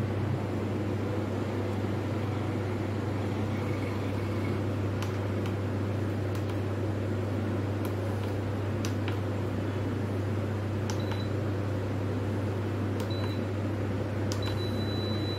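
Philips electric pressure cooker's control panel being set: a few clicks of its buttons being pressed, then short high beeps and a longer beep near the end as the cooking time is entered. Under it runs a steady low hum.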